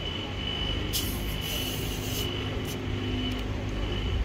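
Screw cap of a plastic bottle of carbonated cola being twisted open. Short hisses of escaping gas come about a second in and again around two seconds in.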